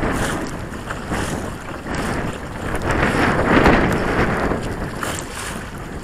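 Choppy waves slapping and splashing against the hull of a Hobie Pro kayak, with wind buffeting the microphone. The noise comes in surges, loudest about three and a half seconds in.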